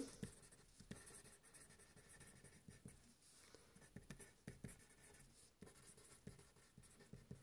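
Pen writing on a paper worksheet: faint, irregular scratching strokes of the pen tip as words are written out.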